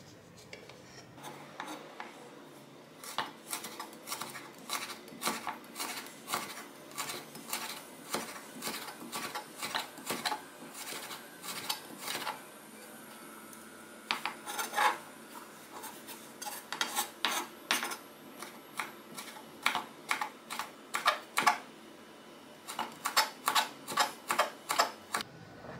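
Chef's knife cutting lemon peel on a wooden cutting board: a long run of crisp taps as the blade slices the peel into thin strips and then chops them fine, with a brief pause about halfway.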